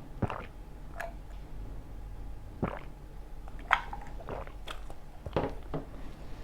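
A person eating pizza: chewing and biting, with about eight short, sharp sounds at irregular intervals.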